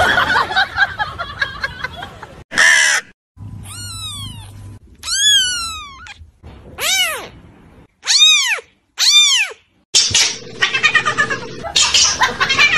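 Tiny two-week-old kitten mewing: about five short, high-pitched meows, each rising and then falling in pitch. Near the end, a cat's rougher, wavering "wawawa" cry.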